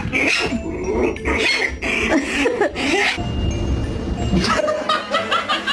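A dog vocalising in short, wavering whines and grumbles for about three seconds, over background music.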